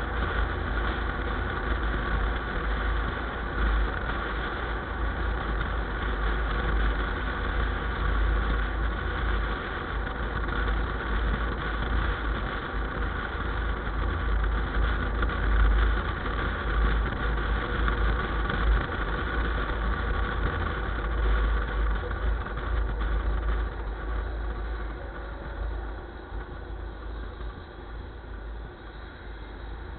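A vehicle's engine running steadily with a deep rumble, easing off a little near the end.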